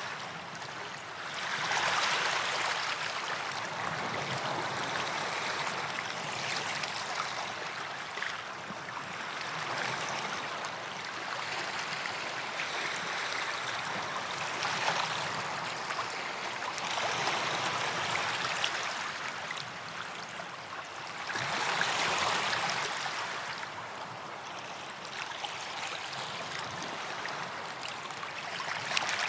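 Small waves washing up on a white-sand beach, each wash swelling and fading every few seconds.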